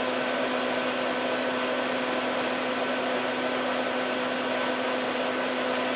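Steady whirring hum of a small motor, like a fan, running evenly with no change in level.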